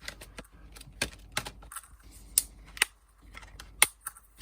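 Irregular light clicks and taps with a few sharper knocks, from craft products and their plastic packaging being handled and set down on a table.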